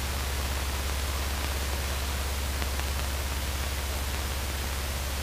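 Steady hiss of a light aircraft's headset intercom audio in flight, with a low steady drone underneath.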